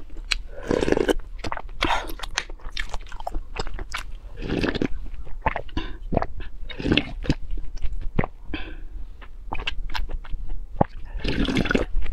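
Close-miked eating sounds: wet chewing and mouth clicks, with several sips and gulps of liquid drunk from a metal bowl.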